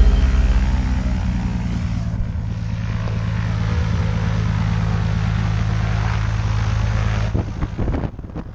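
Single-engine propeller light plane's engine running steadily on the ground, a constant drone. Near the end the drone gives way to knocks and rustling close to the microphone.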